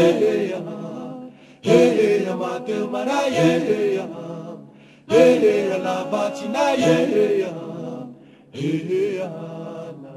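Voices chanting a cappella in short repeated phrases. A new phrase starts with a strong attack about every three and a half seconds, three times in all, each fading before the next.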